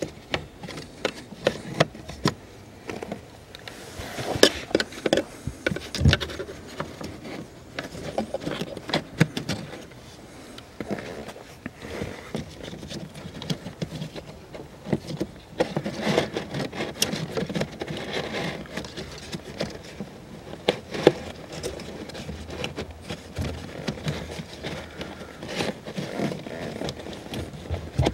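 Irregular plastic clicks, knocks and scraping as a car's cabin air filter is pried and worked out of its plastic housing under the dashboard by hand.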